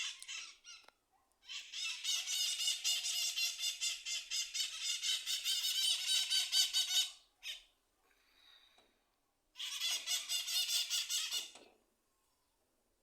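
Maritaca parrots screeching in a rapid, harsh chatter of overlapping calls. The calling comes in two spells, a long one and a shorter one a few seconds later, and stops a little before the end.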